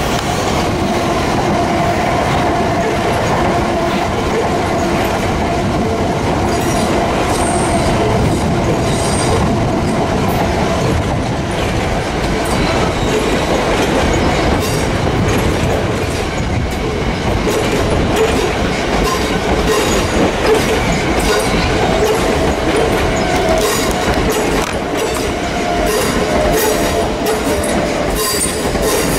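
Southern Class 377 Electrostar electric multiple unit running past close by: a continuous rumble, the wheels clicking over rail joints and points, and a steady high-pitched wheel squeal.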